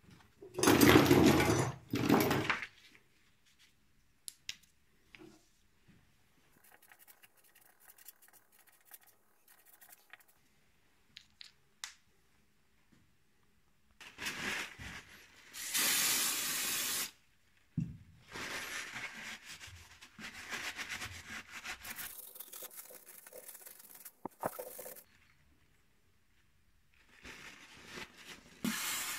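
A sheet of paper rustled and crinkled loudly about a second in, then scattered light clicks of small parts, and from about halfway on bursts of a cloth rubbing and wiping over the Mercedes-Benz OM 615 diesel cylinder head.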